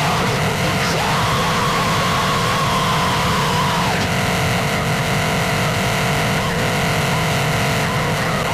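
Harsh noise music: a dense, unbroken wall of distorted noise at a steady level. About a second in, a wavering tone rises out of it for a few seconds. From about four seconds in, several steady droning tones sit on top.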